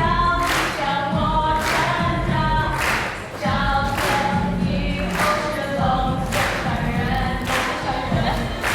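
A group of voices singing a song together, with a sharp percussive stroke or clap about once a second keeping a steady beat.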